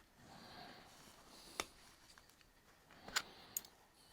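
Faint sharp metal clicks, three of them, as a hand tool works the burr off a small rivet.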